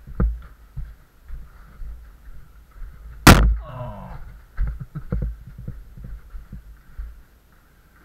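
Dull thumps and knocks of a handheld camera being carried and bumped while people clamber through a cave passage. One loud sharp knock comes about three seconds in, followed by a brief sound falling in pitch.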